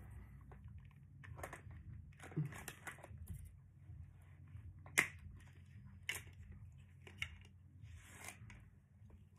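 Plastic toy race-track pieces being handled and fitted together: scattered clicks and rustles, with one sharp click about five seconds in.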